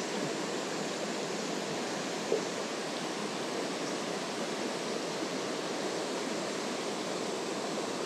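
Mountain stream rushing steadily over rocks and a small cascade. A single short tap comes about two and a half seconds in.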